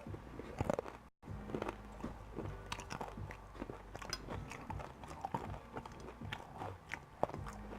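Close-up eating sounds: a person chewing breakfast food, with irregular soft clicks and wet mouth smacks. The sound drops out briefly about a second in.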